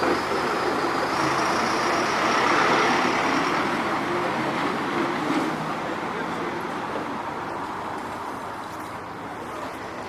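Street traffic: a passing vehicle's noise swells to a peak about three seconds in, then slowly fades away.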